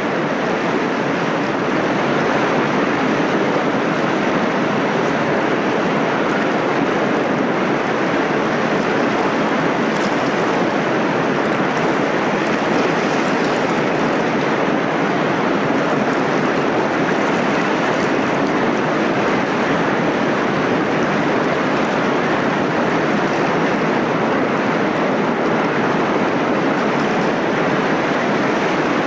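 Waterfall: a steady rush of water pouring down a fall and over shallow cascades, unchanging throughout.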